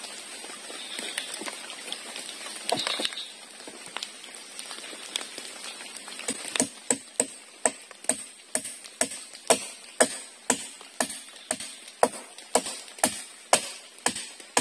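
A wooden stick jabbed repeatedly down into the mud under shallow water, knocking and plunking about twice a second from about six seconds in. Before that there are only a few light clicks and a brief splash.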